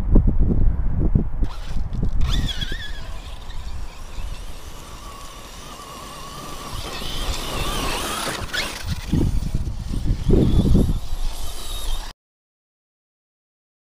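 High whine of brushless electric motors, wavering up and down in pitch, over low wind rumble on the microphone. The sound cuts out suddenly near the end.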